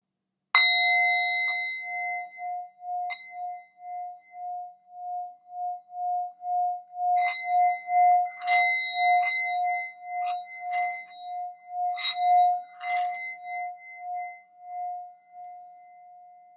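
A singing bowl struck once, its low tone ringing on with an even, pulsing wobble, while lighter bell-like strikes ring out over it, several in the middle and a pair about twelve seconds in. The ringing fades away near the end.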